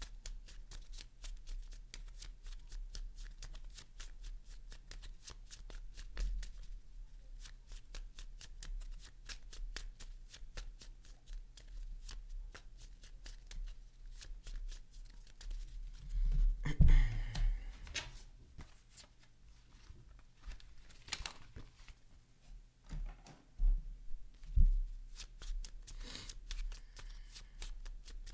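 A deck of playing cards being shuffled by hand: a quick, even run of soft card taps, about four or five a second, broken by a louder rustle of the cards a little past halfway and then scattered taps.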